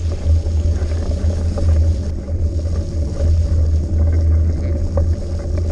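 Strong storm wind buffeting the microphone of a bike-mounted camera, a heavy, irregular low rumble over a noisy hiss, while a mountain bike rolls along a muddy trail.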